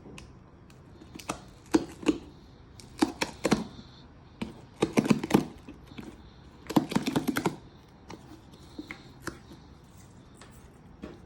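Hands handling watch packaging: four bursts of clicks, taps and rustling a second or so apart, then fainter ticks.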